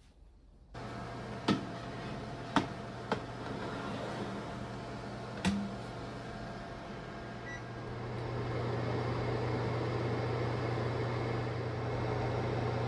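Sharp Healsio steam convection oven running with a steady fan hum that starts abruptly. A few sharp metal clicks and a light clunk come as a baking tray of round pans is slid onto the oven rack. The hum grows louder about eight seconds in.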